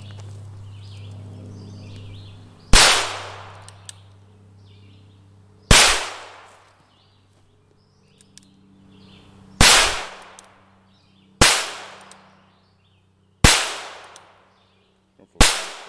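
Six .22 caliber gunshots fired at uneven intervals, one to four seconds apart, each sharp crack trailing off in a short echo.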